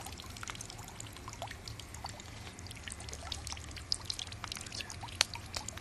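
Water trickling and dripping out of a cordless pool vacuum (Water Tech Pool Blaster Max Li) as it drains after being switched off and opened, with many small scattered drips and a steady low hum underneath.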